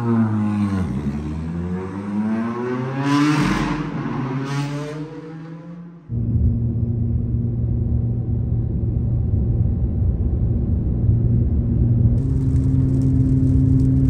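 Ford Fiesta rally car engine revving and pulling away, its pitch climbing steadily through the revs, with two sharp bursts a few seconds in. About six seconds in it cuts to the steady low drone of a car cruising at motorway speed, heard from inside the cabin.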